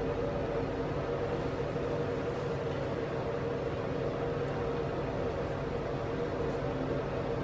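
Steady mechanical hum of room ventilation: a constant low drone that does not change.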